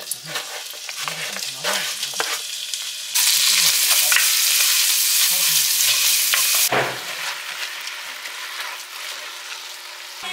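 Kitchen utensils clinking and scraping, then about three seconds in a loud sizzle of food frying in a pan starts suddenly. The sizzle lasts about three and a half seconds and cuts off abruptly, followed by more light clinking.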